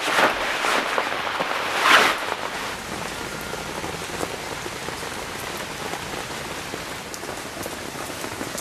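Steady rain falling, with two louder swells of sound near the start and about two seconds in, then an even downpour.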